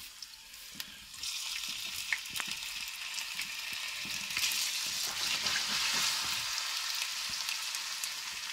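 Raw potato sticks frying in hot oil: a steady sizzle with scattered crackles and spits, which grows louder about a second in. The spitting comes from the moisture in the freshly cut potato.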